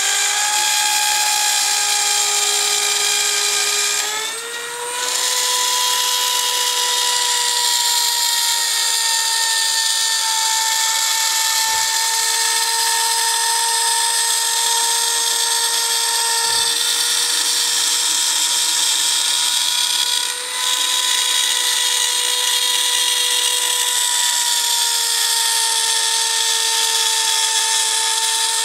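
Dremel-style rotary tool spindle on a Shapeoko 2 CNC router running at high speed as its bit mills a masked acrylic sheet: a steady high-pitched whine. Its pitch rises briefly about four seconds in and again near twenty seconds, with a short drop in loudness each time, as the load on the bit changes.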